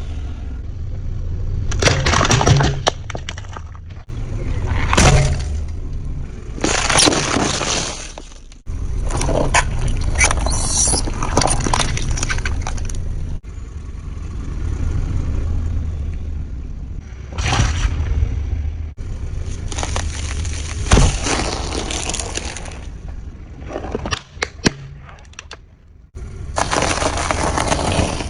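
Objects cracking and breaking as a vehicle runs over and crushes them, in a string of short separate takes with abrupt cuts between them. A low rumble runs underneath.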